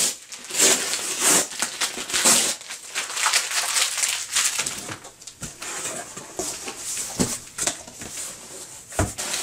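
Cardboard shipping box being opened by hand: short rasps of tape and cardboard being worked loose, then rustling of the flaps with a few light knocks in the second half.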